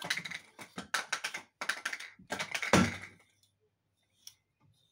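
A comb dragged through thick, freshly washed and oiled natural hair close to the phone's microphone: a quick run of scratchy strokes for about three seconds, with a louder stroke and a thump near the end. Then it goes quiet.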